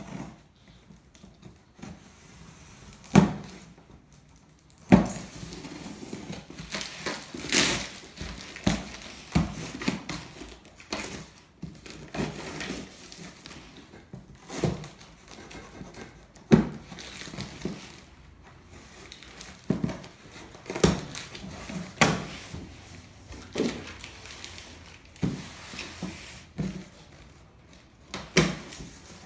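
Cardboard shipping box being opened by hand: packing tape cut and torn, cardboard flaps scraped and pulled open, with irregular sharp knocks and taps against the box. The two loudest knocks come about three and five seconds in.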